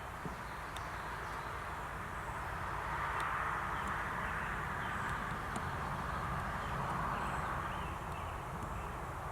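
Quiet outdoor background: a steady rumble and hiss that swells for a few seconds in the middle, with faint bird chirps.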